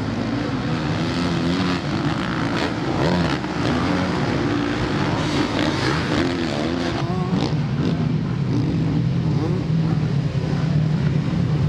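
Several motocross bikes' engines revving, their pitch rising and falling again and again as the riders work the throttle over jumps and down the hill.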